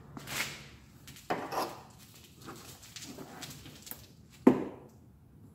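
Scattered clunks, knocks and rustling from hands working up inside a truck's front wheel well, with one sharp knock, the loudest sound, about four and a half seconds in.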